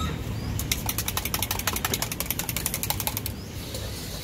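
Eggs being beaten fast in a small metal cup: a rapid, even run of clicks from the utensil striking the cup, about ten a second, which stops about three seconds in.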